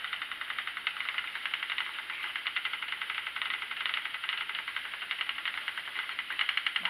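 Schacht Sidekick spinning wheel running while plying yarn, the flyer spinning with a fast, even mechanical ticking.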